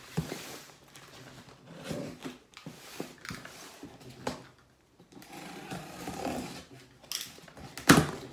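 Cardboard shipping box being opened by hand: scraping and rustling of cardboard and packing tape in irregular bursts, with a few short sharp sounds and one loud sharp crack just before the end as a flap is pulled free.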